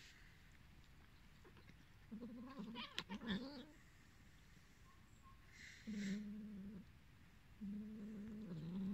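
A cat gives three low, drawn-out yowls, each about a second long, with short pauses between them.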